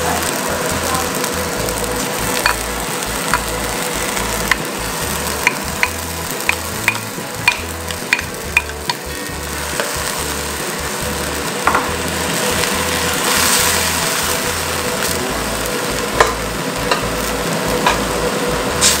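Food sizzling in hot oil in a wok while a wooden spoon stir-fries it. Sharp taps of the spoon against the wok come in a quick run from about 2 to 9 seconds in, and now and then after that.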